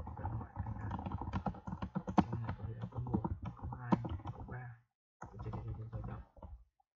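Computer keyboard typing: a run of quick keystrokes, breaking off briefly about five seconds in, over a low steady hum.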